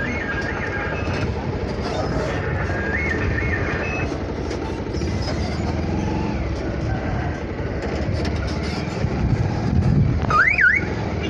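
Motorcycle engine running with a steady low rumble while riding, under a repeating stepping electronic alarm tune of the kind Indian trucks play. About ten seconds in, a loud tone rises and falls once.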